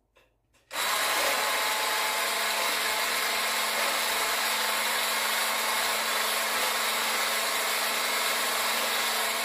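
Handheld electric stick mixer with a whisk attachment switched on about a second in and running at steady speed, beating eggs in a plastic bowl: an even, unchanging motor whir with a constant low hum.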